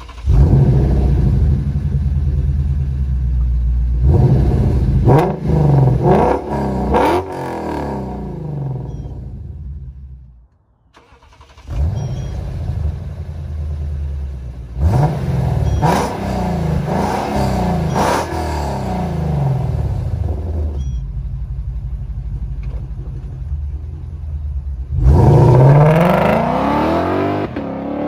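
2012 Lexus IS F's 5.0-litre V8 with catless unequal-length headers and a valved Xforce Varex exhaust, starting and blipped several times with the exhaust valves open, then, after a brief break, starting and blipped again more quietly with the valves closed. Near the end it accelerates away at three-quarter throttle on a cold engine with the valves open, its pitch rising in one long pull.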